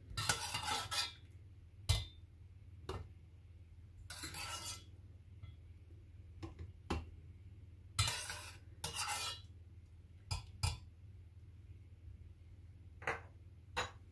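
Metal spoon scraping and clinking against a stainless steel pot while scooping out rosemary sprigs: several short scrapes with sharp clinks in between.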